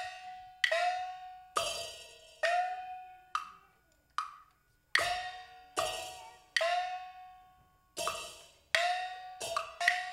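Live Chinese opera-style percussion accompanying a glove-puppet show: single sharp strikes, each ringing with a clear pitch and fading out, about one a second with a short gap midway and quicker strokes near the end.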